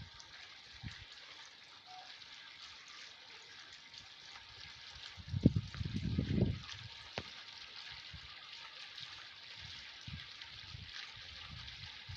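Water trickling and splashing steadily in a small decorative fountain, with a few low bumps about halfway through.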